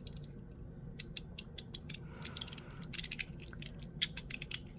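Ultem (PEI) fidget slider being pushed back and forth through its detents, giving quick runs of sharp plastic-and-metal clicks in several bursts.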